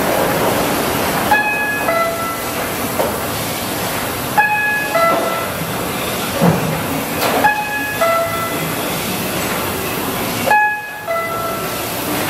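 A descending two-note electronic warning chime, a high note then a lower one, repeating four times about three seconds apart over the steady hiss and hum of a RYOBI 758P offset printing press. It is the sort of alert a press sounds while it is being inched or worked on with its guards open.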